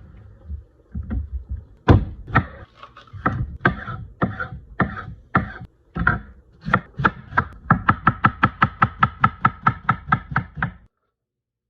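Knife chopping leftover beef: separate chops at an uneven pace at first, then a fast, even run of about four chops a second that stops shortly before the end.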